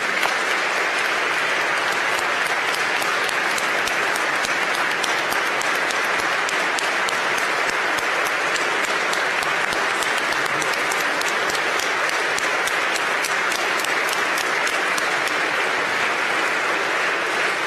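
Audience applauding steadily: a dense, even wash of many hands clapping.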